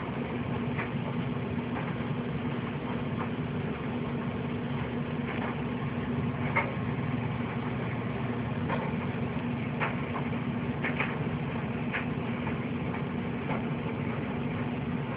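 Steady low mechanical hum, with a few faint clicks scattered through it.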